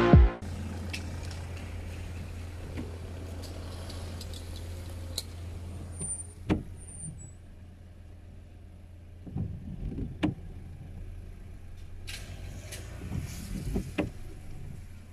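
Cars passing on a wet street, each pass swelling and fading, over a steady low hum, with a couple of short sharp clicks in the middle.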